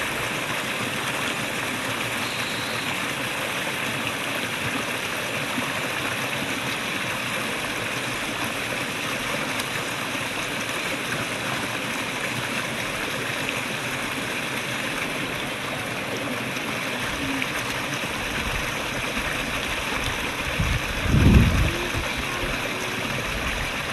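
Small rocky mountain stream splashing and trickling over stones, a steady rushing of water. A brief low rumble near the end.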